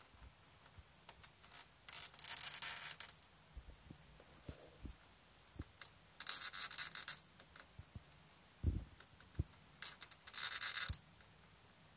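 Gnawing-like scratching from inside a wall and window sash, made by an unseen small creature that the uploader suspects is an insect or a mouse. It comes in three rapid, gritty bursts of about a second each, roughly four seconds apart, with scattered faint clicks and taps between.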